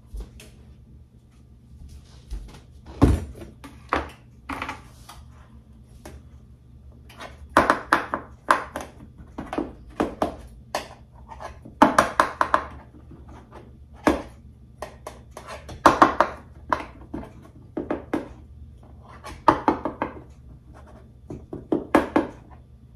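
A single low thud about three seconds in, then a table knife scraping again and again along the inside of a metal loaf pan, loosening a baked loaf of banana bread, with short strokes about every half second to a second.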